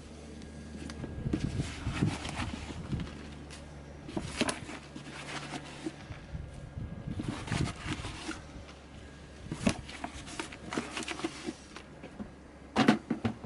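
Compost being tipped and scattered by hand from a plastic bucket onto a garden bed and worked into the soil: soft rustling and pattering with scattered clicks and a few sharp knocks, the loudest a little before the end.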